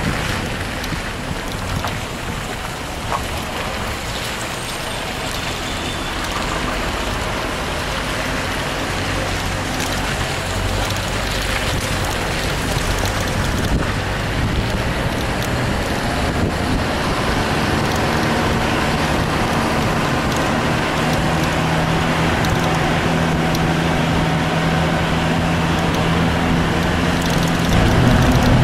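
A vehicle driving along a road, heard from the vehicle itself: steady engine and road noise, with a low engine hum growing stronger in the second half.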